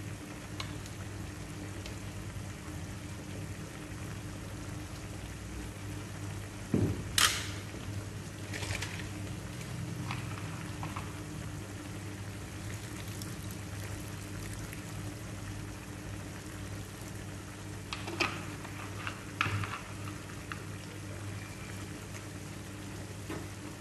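Pork and pork intestines simmering in liquid in a non-stick frying pan, with a steady low hum underneath. A few sharp knocks of a utensil against the pan stand out, the loudest about seven seconds in and two more around eighteen to twenty seconds.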